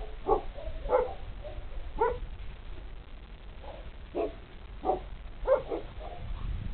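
Two three-month-old Polish Tatra Sheepdog (Podhalański) puppies giving short barks while they wrestle in play, about seven at irregular intervals, some in quick pairs.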